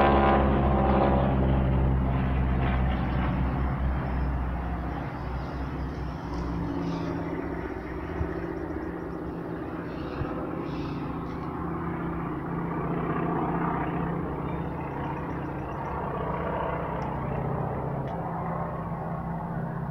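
Engines of two aircraft flying past overhead in formation. The drone falls in pitch and fades over the first few seconds as they pull away, then holds as a steady, fainter drone while they climb trailing smoke.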